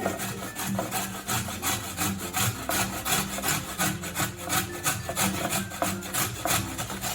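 Carrot being grated by hand on a kitchen grater: repeated scraping strokes, about two to three a second.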